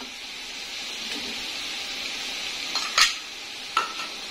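Spiced tomato and ginger-garlic masala sizzling steadily in a cooking pot, with a metal spoon knocking sharply against the pot twice, loudest about three seconds in and again near the end.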